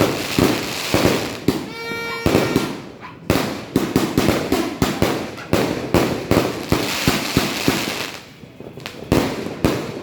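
94-shot fireworks cake firing in quick succession: a dense run of sharp bangs, several a second, with noise hanging between them. It eases off briefly about eight seconds in before a few more bangs.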